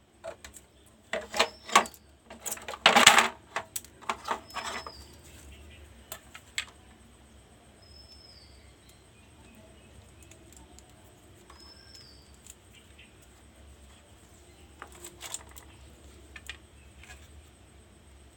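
Clicking and rattling from handling a multimeter and its probe leads as it is set to continuity, busiest in the first five seconds, then a few faint clicks. A bird chirps a short call several times in the background.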